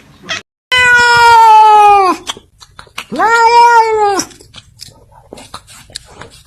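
Domestic cat giving two long, loud meows: the first drawn out for about a second and a half and dropping in pitch at its end, the second, shorter one rising and then falling.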